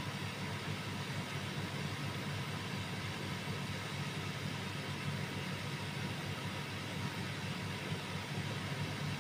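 Steady low hum with a hiss above it, unchanging throughout, with no distinct sounds standing out.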